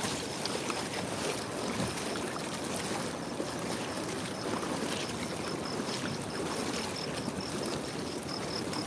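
Shallow floodwater rushing and splashing around someone wading through it. From about three seconds in, a faint high chirp repeats about three times a second.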